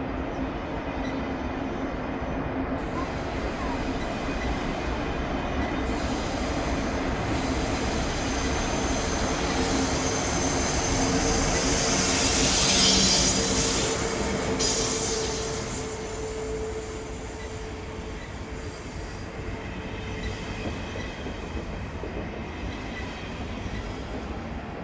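ICE 2 high-speed train rolling slowly past along the platform, its wheels and running gear rumbling with a steady low hum. The sound grows louder to a peak about halfway through, as the front end of the second coupled set passes, then eases off.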